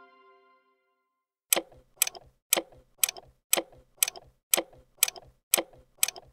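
Clock-ticking sound effect, about two ticks a second, starting about a second and a half in, counting down to the next quiz question. The tail of a chime fades out at the very start.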